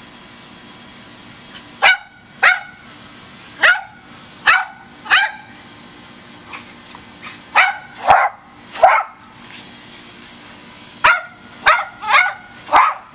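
Rat terriers barking up at a squirrel in a tree: about a dozen sharp barks in three bouts of three to five, with pauses of about two seconds between bouts.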